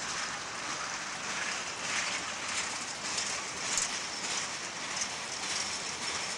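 Freight cars rolling past on steel rails: a steady rush of wheel noise with light, regular clicks about every half second or so.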